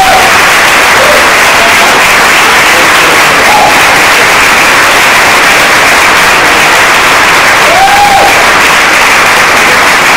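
Audience applauding and cheering, with a few short whoops rising out of the clapping.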